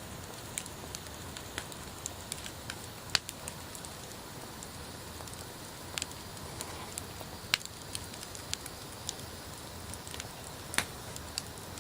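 Wood bonfire burning with a steady low hiss and irregular sharp crackles and pops; the loudest pops come about three seconds in, about seven and a half seconds in, and near the end.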